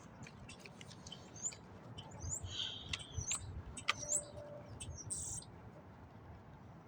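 Songbirds chirping and calling: a run of short, high, upswept chirps, busiest between about two and four seconds in, over a faint low rumble.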